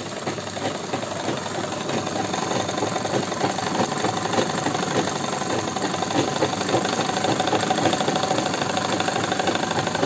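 Sewing machine running steadily at speed, its needle stitching rapidly through layered cloth in a fast, even run of stitches while curving decorative lines are sewn into a salwar cuff.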